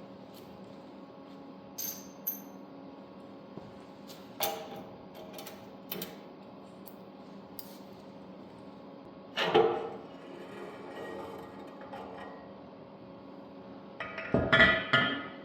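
Metal tools and parts being handled during a teardown: a few light metallic clinks, then two louder clattering spells of metal on metal, about halfway through and near the end, over a steady hum.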